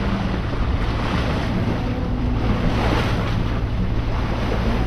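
Water rushing and splashing along a sailboat's bow as it moves through a light swell, with wind buffeting the microphone and a steady low drone of the boat's engine underneath: the boat is motor sailing.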